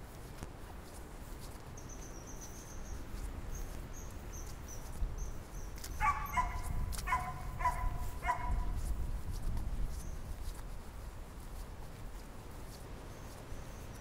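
A dog barking about four times in quick succession, midway through, over a steady low rumble of wind. Before the barks, a small bird gives a run of high, thin notes.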